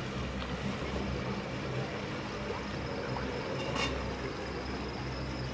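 Motorboat engine running steadily at a distance, a low drone as the boat crosses the calm water. There is a brief high chirp about four seconds in.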